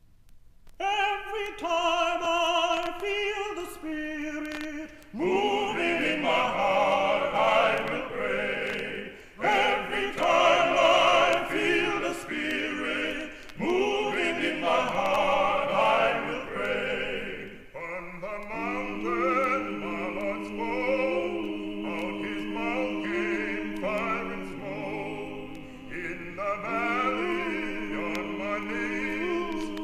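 Male vocal quartet of tenors, baritone and bass singing a spiritual. The singing starts about a second in, after a short silence.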